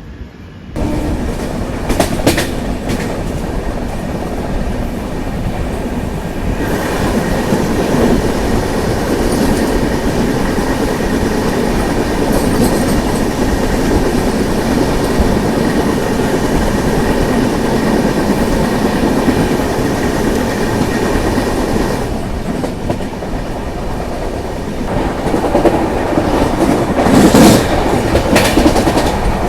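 A train passing close by, its wheels clattering steadily over the rail joints, with sharp metallic clacks about two seconds in and again near the end.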